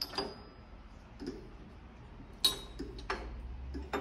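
Aluminium bars of a Deagan Imperial 55 vibraharp being set one at a time onto the frame's posts: about half a dozen sharp clicks and clinks, some with a brief metallic ring, the loudest about two and a half seconds in.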